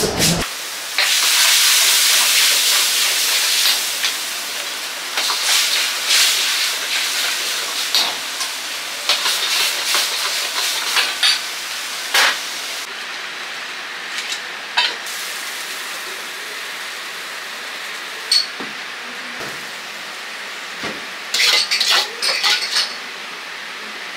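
Food sizzling and hissing in a hot wok, loudest for the first few seconds, with a metal ladle clanking and knocking against the pan now and then and a burst of clanks near the end.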